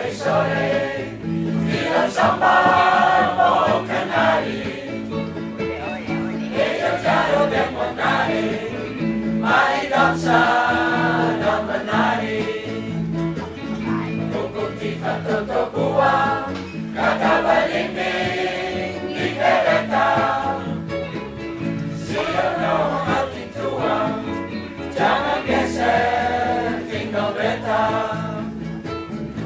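A choir singing with instrumental accompaniment, phrases of a few seconds each.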